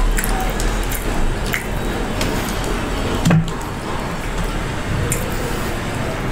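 KFC fried chicken being torn apart by hand and chewed close to the microphone: crisp crackles and squishy tearing, with a duller knock about three seconds in.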